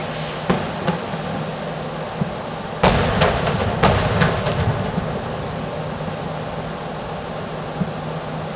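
Fireworks shells bursting some way off: scattered sharp booms, the two loudest about three and four seconds in, each trailing off in a brief rumble amid a few smaller cracks, over a steady background hiss.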